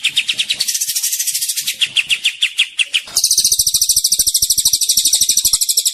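Songbird 'tembakan' trills: fast runs of sharp repeated notes, about ten a second, that switch about halfway through to a higher, denser trill.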